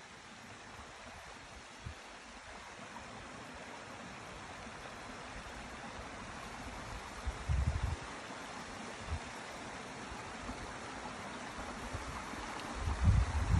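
Small stream rushing over rocks, a steady watery hiss that grows slowly louder as it is approached. Two brief low rumbles on the microphone break in, about halfway through and near the end.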